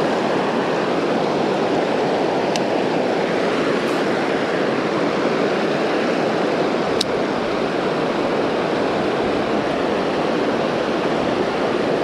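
Creek water rushing steadily over a small rocky cascade, a loud, even rush. Two faint clicks come through it, about two and a half and seven seconds in.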